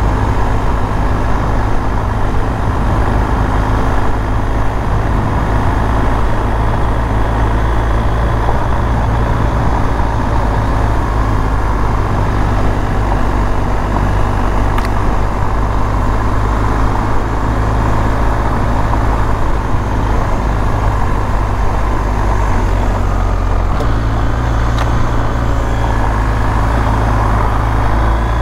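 Motorcycle engine running steadily under way on a dirt road, with constant wind and road noise. The engine note shifts to a new pitch about three-quarters of the way through.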